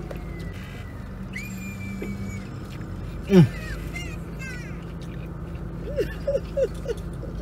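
Low steady hum inside an idling car, over which a person makes wordless, exaggerated sounds of enjoyment while eating: a high held note, then a loud falling cry about three and a half seconds in, and a quick string of short rising-and-falling hums near the end.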